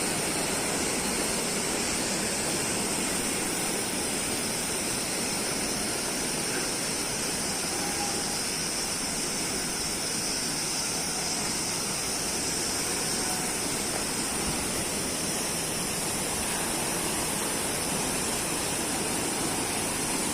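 Waterfall running: an even, steady rush of falling water.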